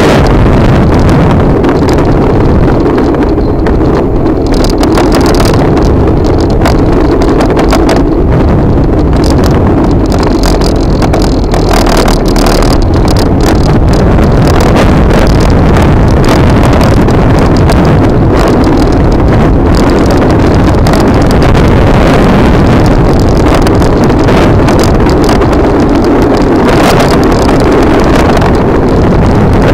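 Loud, steady wind buffeting on the microphone with a low rumble while riding a Daymak Kingston 72V electric scooter. A faint high whine comes and goes a few times.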